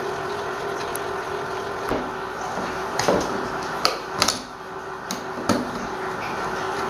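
Screwdriver working on an old electric fan motor, with several sharp metallic clicks and knocks as the tool and the motor's metal housing are handled, over a faint steady hum.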